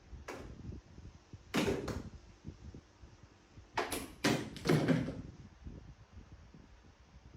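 A series of sudden knocks and thumps, about five, irregularly spaced, with low rumbling noise between them.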